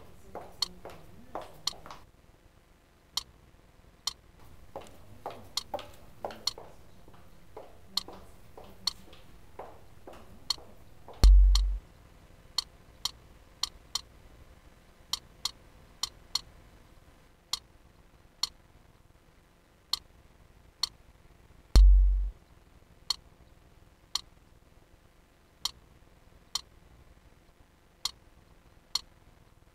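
High-heeled shoes clicking on stone paving in steady walking steps, a little under one a second. Two loud deep bass thuds stand out, about a third and about two-thirds of the way through.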